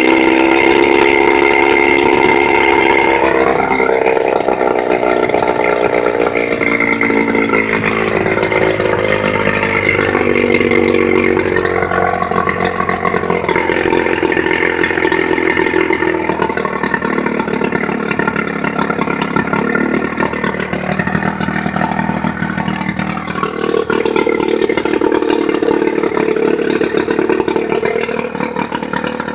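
15 hp Johnson J15RCSD two-stroke outboard motor running, its engine note rising and falling several times as the throttle is opened and eased back.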